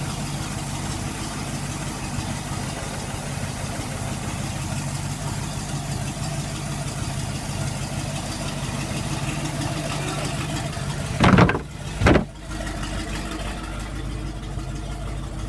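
Mercruiser V8 inboard/outboard boat engine idling steadily. Two loud knocks come near the end, after which the engine sounds more muffled.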